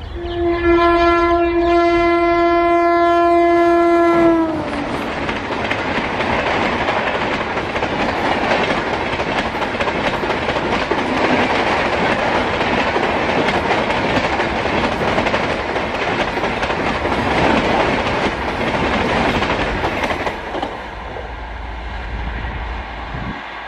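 An Indian Railways electric locomotive sounds one long horn blast on its approach, the pitch dropping as it passes about four seconds in. Then a rake of LHB passenger coaches rushes past at speed with a steady rumble and wheel clatter, which falls away about twenty seconds in.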